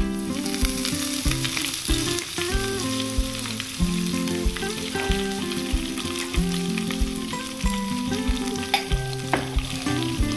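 Curry leaves sizzling in hot oil with mustard and cumin seeds in a frying pan: a spice tempering. The sizzle jumps up as the leaves go in at the start and carries on steadily.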